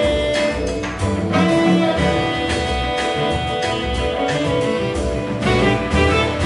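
Live jazz quintet playing: saxophone, electric guitar, electric piano, double bass and drum kit, with the guitar prominent.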